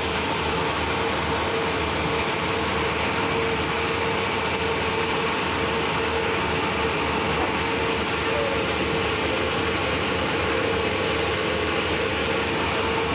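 A 5-foot veneer glue spreader running: a steady mechanical drone with a constant hum.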